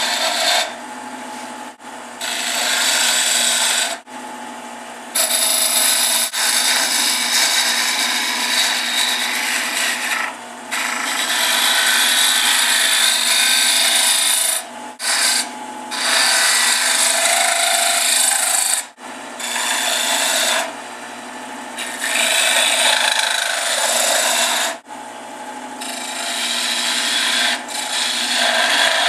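A turning tool cutting a small wooden knob spinning on a wood lathe: a hissing scrape that comes in repeated passes of a few seconds with short breaks as the tool is eased off, over the lathe motor's steady low hum.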